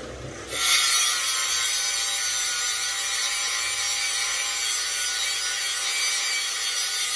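A power tool working metal starts up about half a second in and runs steadily: a loud, even hiss with a high whine.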